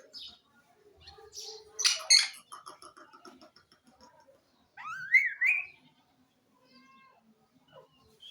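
A parrot calling: a pair of loud, harsh squawks about two seconds in, then a rising, warbling call around the middle, followed by a few softer short calls.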